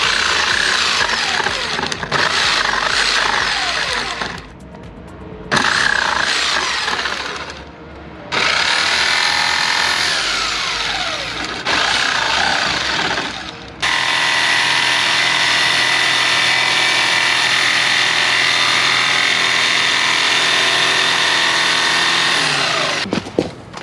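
Corded jigsaw sawing through a thin plywood board. It runs in spurts, stopping and starting again three times, and the last and longest run lasts about nine seconds before cutting off near the end.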